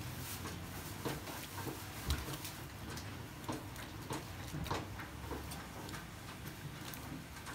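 Water splashing and dripping as hands swish fresh rice noodles in a basin of water and lift the wet bundles out. There are irregular small splashes and drips, over a steady low hum.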